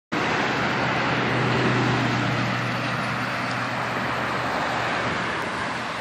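Road traffic on the adjacent highway: steady tyre and engine noise from passing cars and pickups, with a low engine hum that fades out about four and a half seconds in.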